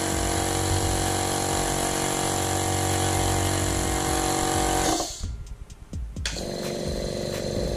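A conventional air compressor running loud, rated at 92 decibels, stops abruptly about five seconds in. About a second later a Cevik Pro Silent 12 oil-free silent compressor starts and runs with a quieter, different hum.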